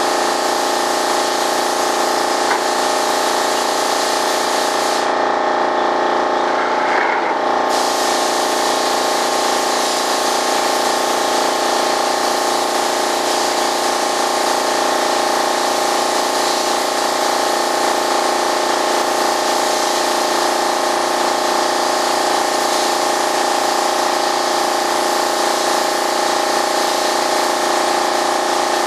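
Compressed-air spray gun hissing steadily as it sprays, with a break of about two seconds around five seconds in, over a constant machine hum.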